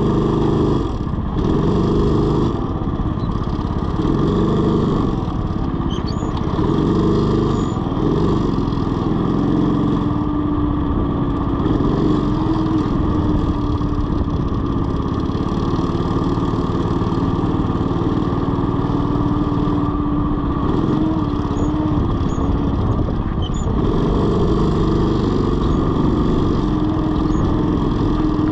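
Go-kart engine running at speed, heard from the driver's seat: its pitch dips and climbs through the corners and holds fairly steady along the straight in the middle.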